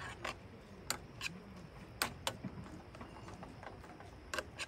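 A utensil clicking and scraping against a small coated camping pot while scrambled eggs are stirred: a handful of sharp, irregular clicks over a low steady background.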